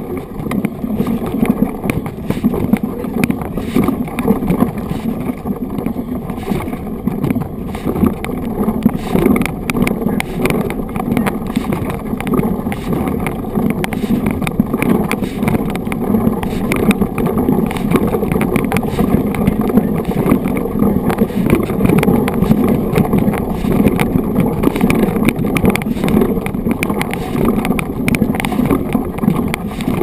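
Mountain bike rolling along a gravel dirt road, heard from a handlebar-mounted action camera: a steady rumble of knobby tyres on the loose surface with constant small rattles and clicks.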